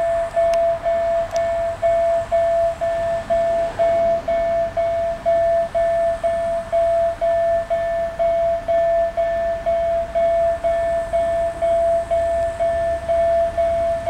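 Railroad crossing warning signal ringing: a steady electronic bell tone beating evenly, about two and a half strokes a second.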